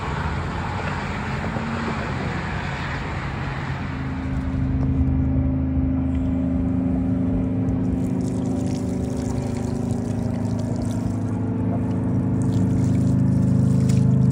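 A rushing noise for the first few seconds, then a steady low engine hum, like a vehicle idling, that grows louder near the end. Water splashes faintly as a plastic bucket is tipped out onto the concrete.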